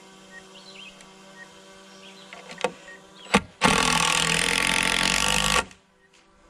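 DeWalt cordless impact driver driving a fastener into timber in one loud burst of about two seconds, starting a little past halfway and cutting off suddenly.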